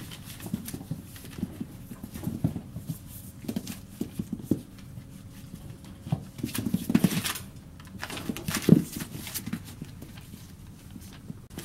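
Four-week-old border collie puppies romping in a pen: scattered soft thumps and scuffling of small paws on fleece bedding, with louder rustling of newspaper in two bursts about halfway through.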